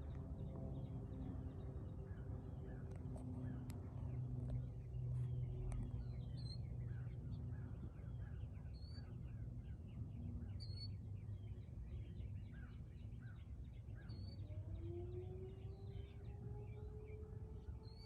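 Small birds chirping over a low outdoor rumble. About fourteen seconds in, an outdoor tornado warning siren starts to wind up, its tone rising and then holding steady: the start of the scheduled siren test.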